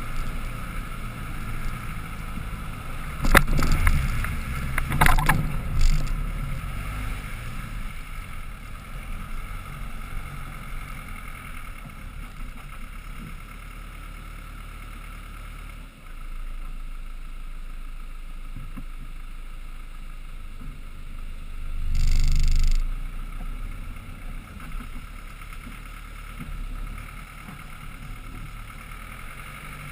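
Land Rover Defender 110 crawling up a rocky trail, its engine a low steady rumble heard from a roof-mounted action camera with wind hiss over the microphone. A cluster of sharp knocks and thumps comes a few seconds in as the vehicle jolts over rock, and a brief louder rush comes about two-thirds of the way through.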